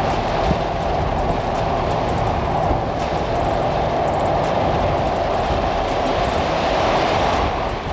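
Cadillac limousine driving at highway speed: a steady, unbroken rush of tyre, road and engine noise.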